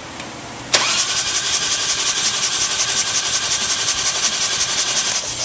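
Harley-Davidson Twin Cam engine turned over on its electric starter with the spark plug out, spinning freely without firing for about four and a half seconds. It starts suddenly about a second in, with a quickly rising whine and a fast, even pulsing hiss, and stops just before the end. The engine is being cranked to center the oil pump's gerotor gears.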